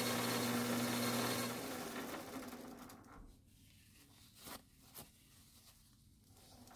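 Metal lathe running with a steady hum, winding down and falling quiet between about two and three seconds in. After it stops, two short soft rubs follow as a rag wipes the knurled part.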